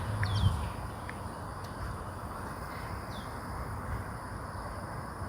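Outdoor ambience: a few short, downward-falling bird chirps over a steady background hum, with a low rumble fading out in the first second.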